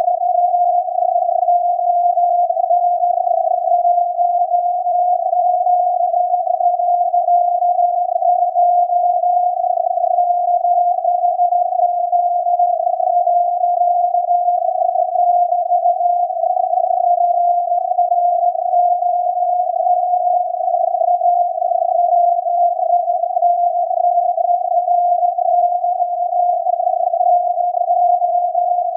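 SAQ's Alexanderson alternator VLF transmitter on 17.2 kHz, received on a software-defined radio as a steady, unbroken beat tone near 700 Hz inside a narrow band of hiss. The tone wavers slightly in pitch.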